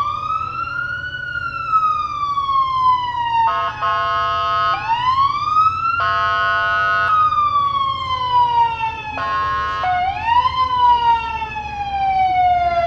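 Emergency vehicle siren wailing, rising quickly and then falling slowly in pitch, three times over. It is broken three times by horn blasts of about a second each.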